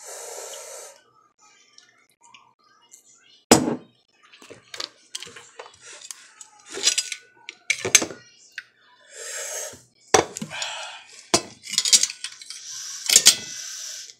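Cutlery clinking, knocking and scraping on a plate during eating, with a sharp clink about three and a half seconds in and several short hissing noises in between.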